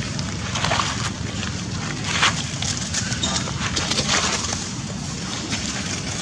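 Short, noisy calls from macaque monkeys over steady outdoor background noise.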